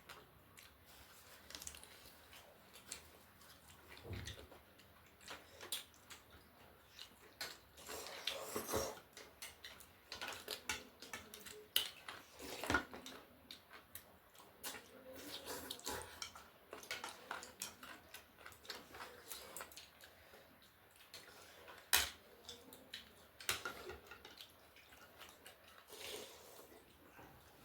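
Eating noises from a bowl of chicken thukpa noodle soup: a spoon clinking and scraping against the bowl in scattered light clicks, with a few wet slurps of soup and noodles; the sharpest clinks come about twelve and twenty-two seconds in.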